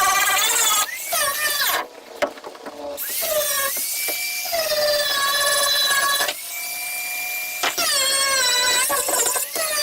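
Electric grinder grinding the boat's fiberglass hull, its motor whine sagging and rising in pitch as it bears on the work. It cuts out about two seconds in and spins back up a second later, then cuts out again near six seconds and restarts before eight.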